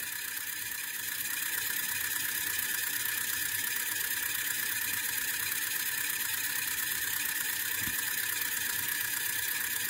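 Small N20 geared DC motor whirring steadily as it spins the compass magnet motor's rotor through a universal coupling at high speed, a high-pitched whir that grows slightly louder about a second in.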